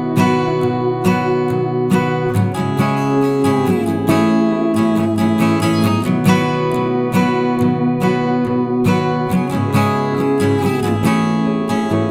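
Background music: strummed acoustic guitar playing a steady rhythm, with a few sliding notes.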